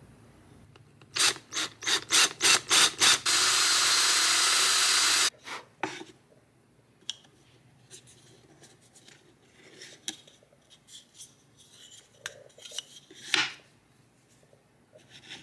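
Cordless drill with a Forstner bit boring a hole in plywood: a run of short pulses, then about two seconds of steady drilling that stops suddenly. Light clicks and knocks of wooden pieces being handled follow, one louder near the end.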